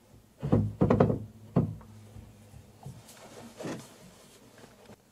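A few sharp metallic knocks and clunks in the first second and a half, then softer handling noises: the metal lathe's tool post and slides being moved and set against the workpiece before facing.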